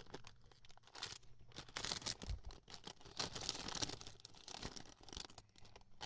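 Packaging being handled: crinkling and rustling, with scattered small clicks and taps, busiest in the middle.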